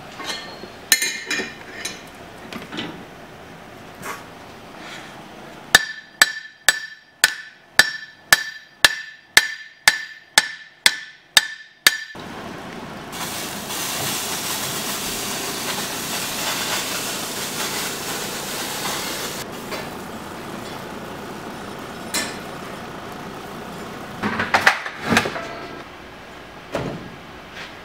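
Scattered metal clanks, then about a dozen evenly spaced hammer blows on steel at an anvil, about two a second, each ringing. Then a steady hiss that starts and stops abruptly after about six seconds, and a few more metal clanks near the end.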